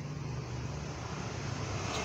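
Steady hum of passing road traffic, a motor vehicle's engine running with a low drone.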